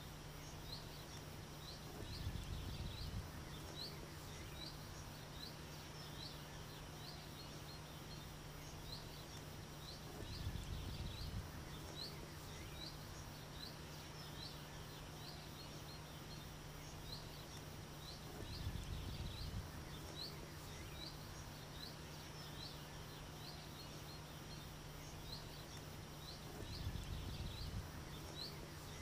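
Open-air countryside ambience: many short, high chirps repeat through a faint steady hiss and a low steady hum. Four times, about every eight seconds, a low rumble swells for a second or so and is the loudest sound.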